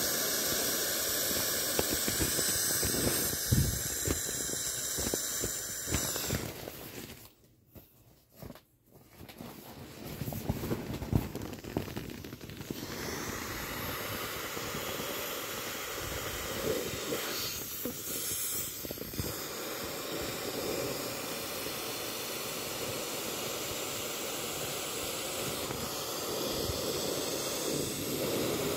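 Air hissing out of a vinyl inflatable's tail valve as hands squeeze its chambers to deflate it, with handling noise from the vinyl. The hiss cuts out for about two seconds roughly a quarter of the way in, then resumes steadily.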